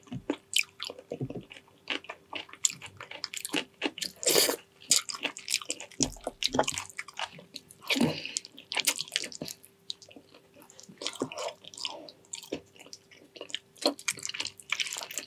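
Close-miked chewing and lip-smacking of a person eating braised pig's trotters: irregular wet smacks and clicks. A faint steady hum runs underneath.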